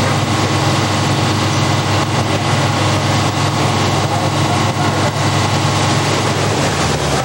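Heavy fire-apparatus engines running steadily under pump load: a loud, constant low drone over a steady hiss. The drone drops in pitch near the end.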